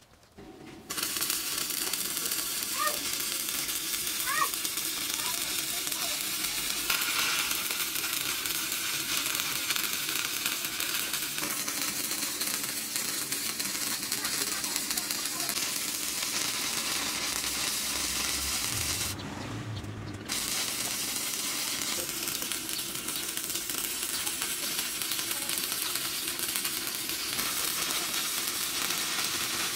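Electric arc welding on steel plate: the arc's steady crackling sizzle starts about a second in, breaks off for about a second a little before two-thirds of the way through, then carries on.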